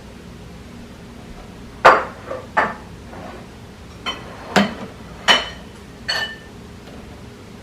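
Hard toys knocked about and dropped by an African grey parrot: a string of about seven sharp knocks and clinks, the loudest about two seconds in. Some of the later ones ring briefly, like small metal or glass parts.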